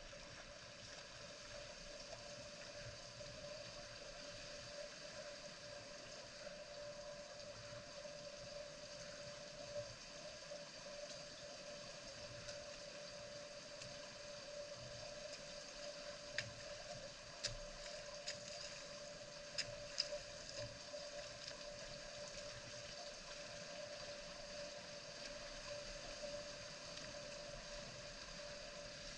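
Rain falling steadily, an even hiss, with a steady hum underneath and a few sharp ticks about halfway through.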